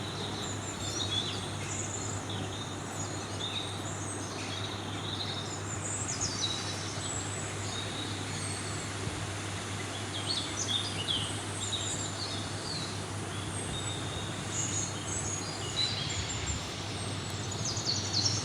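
Birds chirping in short, high calls, scattered and coming in clusters, over steady background noise with a low hum.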